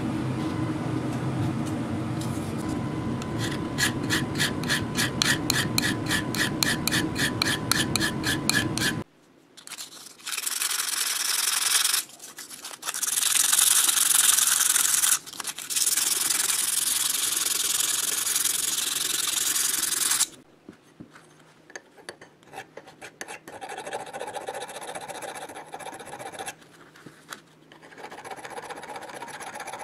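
Hand filing and rubbing on the steel shaft of an air compressor crankshaft, with an abrasive block and then a thin file. It starts with quick strokes, about four a second, then turns to three long, harsh scraping passes a few seconds each. It ends in lighter, broken strokes.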